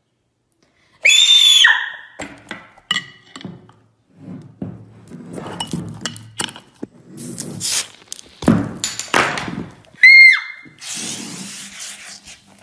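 A short high whistle-like squeal, then a clatter of knocks and thumps, a second high squeal about ten seconds in, and a fizzing hiss near the end as a bottle foams over.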